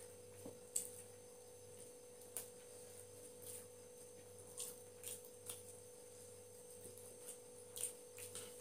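Faint scattered clicks and smacks of people eating biryani with their fingers from plates, over a steady low hum in the room.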